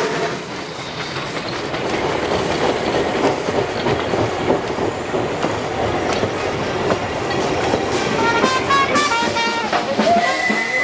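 Narrow-gauge steam train passing close by: as the locomotive goes by, its passenger coaches roll past with wheels clattering over the rail joints. Near the end, some high tones sound over the rolling noise.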